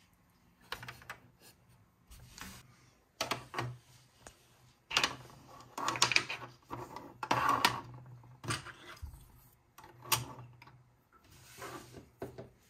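Small plastic toy accessories being handled and set down on a plastic Bluey Hammerbarn playset: a string of light clicks, taps and short scrapes, busiest in the middle.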